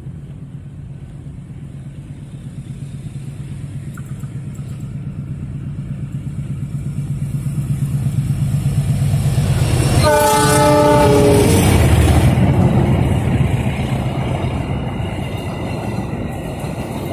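Diesel-electric locomotive approaching with its engine drone growing steadily louder, sounding its horn for about a second and a half about ten seconds in, then passing close by, followed by passenger coaches rolling past on the rails.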